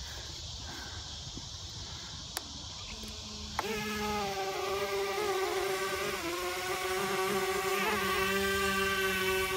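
Electric motors and propellers of an E-flite X-Vert VTOL RC flying wing spinning up suddenly about a third of the way in, then holding a steady high-pitched whine that wavers slightly with the throttle as it lifts off.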